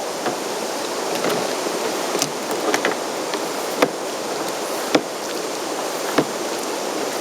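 Steady rushing water noise around a kayak, with scattered light clicks and knocks as the anchor trolley line is pulled back through its pulleys.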